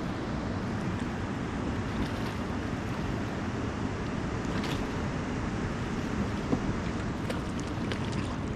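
Steady rushing noise of wind and moving river water around a drifting raft, with a few faint splashes about halfway through and near the end.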